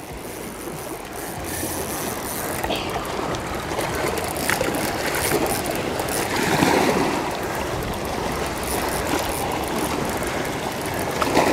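Columbia River water washing and lapping against a rocky shoreline: a steady rushing noise.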